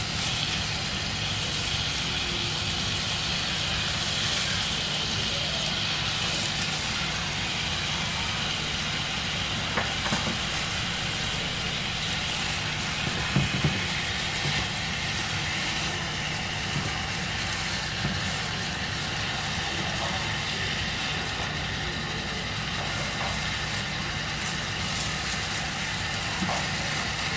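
Lamb chops sizzling in hot oil in a cast-iron skillet as they are laid in by hand: a steady hiss, with a few small knocks of meat and bone against the pan.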